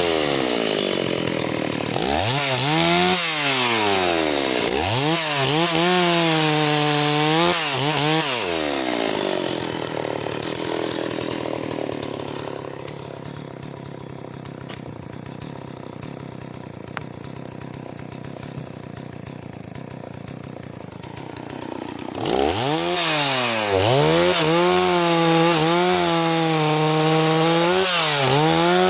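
Stihl 038 two-stroke chainsaw running at high revs, its pitch sagging and recovering several times. About ten seconds in it drops back to a quieter, lower run, then revs up loud again a little after twenty seconds, with more dips in pitch.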